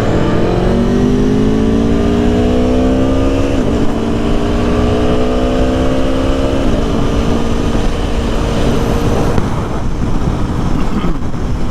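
Aprilia Tuono motorcycle engine accelerating hard, its pitch climbing through the gears with upshifts about three and a half and six and a half seconds in, then holding a steady pitch at freeway speed. Heavy wind noise on the microphone runs underneath.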